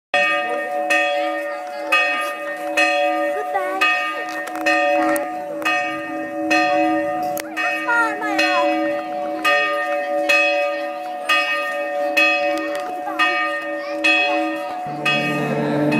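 Church tower bell tolling, struck about once a second, its hum ringing on between strokes, with voices chattering faintly underneath. About a second before the end it gives way to group singing.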